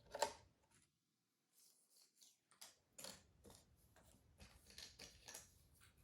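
Cardboard jigsaw puzzle pieces being handled, with soft clicks, taps and scrapes as they are picked up, slid and pressed into place. The loudest tap comes just after the start. A brief dead silence follows, then a run of light taps and rustles.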